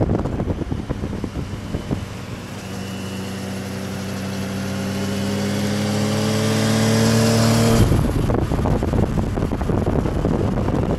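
Wind rushing over the microphone from a moving vehicle, then a sportbike engine under steady acceleration, its note climbing slowly in pitch and growing louder for about six seconds before cutting off suddenly; the wind rush returns after it.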